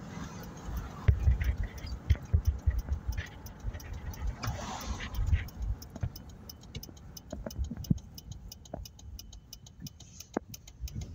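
Inside a moving vehicle's cab: low road rumble with irregular thumps and many small clicks and ticks, loudest in the first half.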